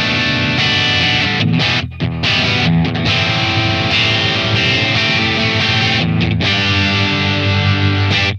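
SLX Hawk Classic 22 HSS electric guitar (HSS pickups) played through a distorted amp, chords and riffs ringing continuously, with brief breaks about two and six seconds in.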